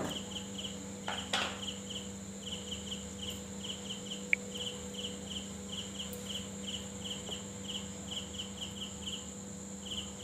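A cricket chirping in short, evenly repeated pulses, over a steady low hum.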